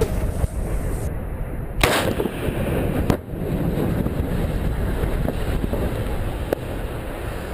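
Wind buffeting an outdoor microphone as a low, rumbling noise, with a sharp thump about two seconds in and a fainter one about a second later.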